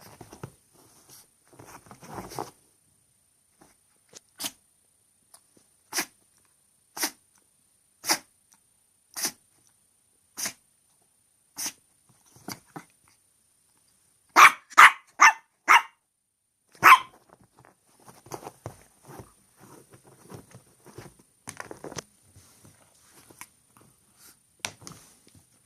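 Chihuahua sneezing again and again: short single sneezes about a second apart, then a louder run of four quick sneezes and one more, with light rustling in between.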